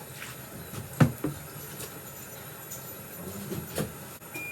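A few light knocks and clatters from kitchen items being handled, the loudest about a second in. A single high electronic beep starts at the very end.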